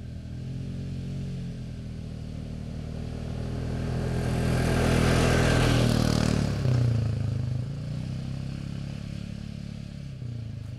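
ATV engine driving past on a sand trail: it grows louder to a peak about halfway through, drops in pitch as it passes, then fades away.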